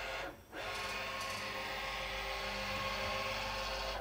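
JMC iHSV57 100-watt integrated servo motor spinning the Taig CNC mill's 20 TPI leadscrew at about 3000 RPM, which is 150 inches per minute. It gives a steady whine made of many tones, with no odd noises. It drops out briefly about half a second in, as the table stops and reverses, then runs on steady.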